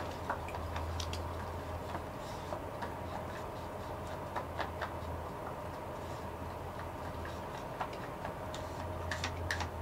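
Stir stick ticking and scraping against a small mixing cup as two-part epoxy is mixed: scattered light clicks, with a quick cluster near the end, over a steady low hum.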